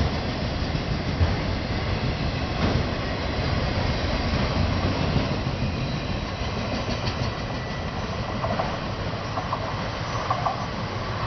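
Intermodal freight train cars rolling past, a steady rumble with wheels clacking over rail joints. Short high squeals come in during the last few seconds.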